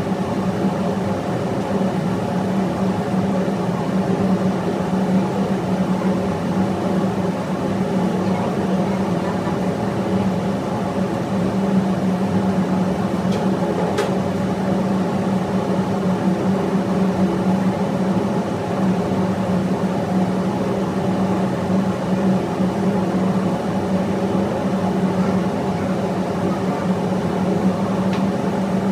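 Steady drone of running machinery in a ship's engine room: a strong low hum with even tones stacked above it, unchanging throughout, with a single faint tick about halfway through.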